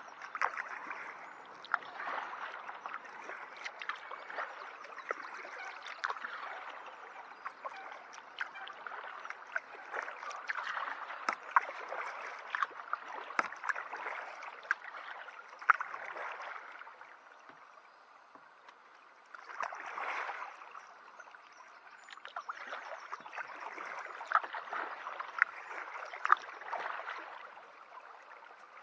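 Kayak paddle strokes in calm water: the blades dip and pull, with splashing, dripping and small sharp ticks in uneven bunches, easing into a short lull about two-thirds of the way through before the strokes resume.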